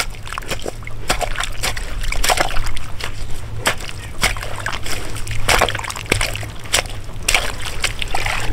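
Hands and a hammer scooping mud and water out of a hole in a muddy creek bank: irregular sloshing and splashing in shallow water.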